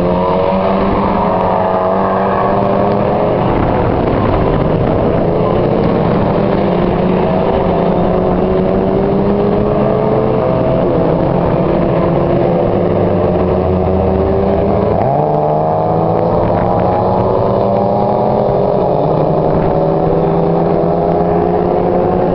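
A pack of Mazda MX-5 race cars' four-cylinder engines accelerating past together. Several overlapping engine notes keep rising in pitch and dropping back as the cars change up through the gears, one car after another.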